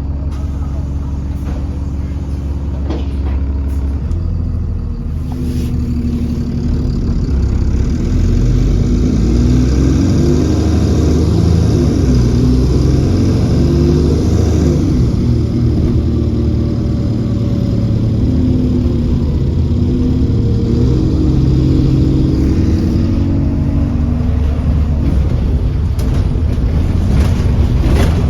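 Alexander Dennis Enviro400 Trident double-decker bus's diesel engine pulling away about four seconds in and accelerating, its pitch climbing and stepping back down through the gear changes, with a high turbo whine over it. It eases off a little after twenty seconds.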